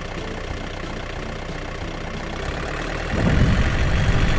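Truck engine running steadily, then growing louder with a heavier low note about three seconds in as it pulls away.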